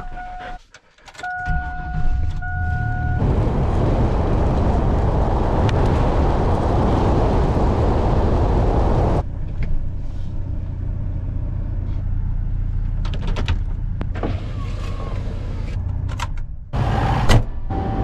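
Inside an old pickup truck: a steady electronic warning chime sounds for the first three seconds, broken briefly about a second in. Then comes the truck's engine and driving noise, loud and even at first and settling to a lower steady rumble from about nine seconds in. Near the end the sound switches to a tractor cab's steady hum with a held tone.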